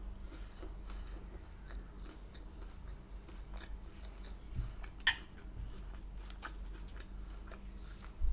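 Close-up eating sounds: a person quietly chewing a mouthful of food, with soft mouth clicks and one sharper click about five seconds in.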